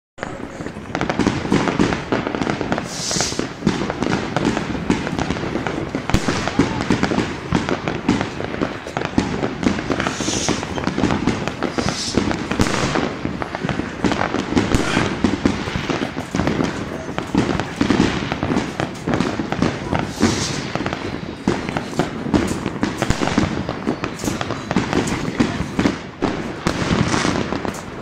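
Many fireworks and firecrackers going off at once: a dense, continuous crackle of pops and bangs, now and then with a short high hiss.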